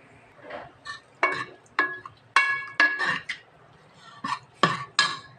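Steel ladle stirring sambar in a pressure cooker pot, clinking against the metal about eight times with short metallic rings as the tempering is mixed in.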